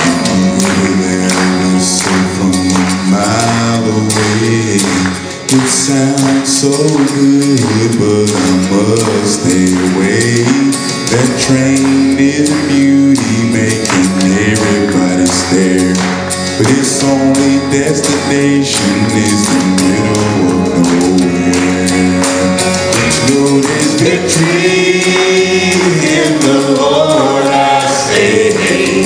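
Male gospel vocal group singing in close harmony over a steady percussive beat.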